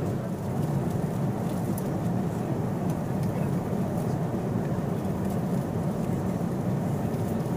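Steady low cabin roar of a Boeing 777-200ER airliner in flight: engine and airflow noise inside the passenger cabin.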